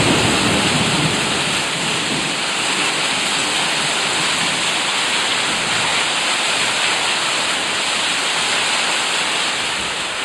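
Hail and rain falling hard in a steady hiss. A low thunder rumble dies away about a second in.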